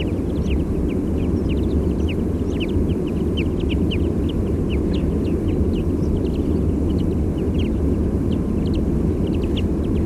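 Many short, high flight calls of migrating finches, wagtails and pipits, several a second, over a steady low rumble of distant sea surf.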